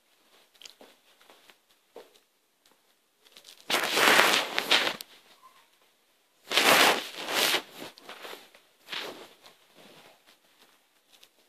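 Scuffing and crackling noises close to the microphone as a puppy plays right at the phone, with two loud rough bursts about four and seven seconds in and a smaller one near nine seconds, between faint scattered clicks.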